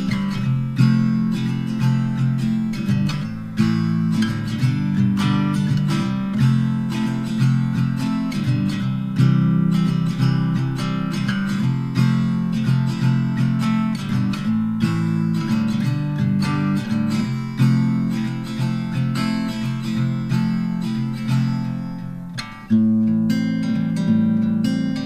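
Background music on acoustic guitar, plucked and strummed with a steady rhythm; it dips briefly about 22 seconds in and comes back in.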